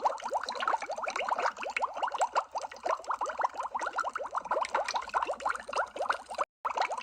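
Underwater bubble sound effect: a continuous stream of quick, rising bubbling blips, with a brief dropout about six and a half seconds in.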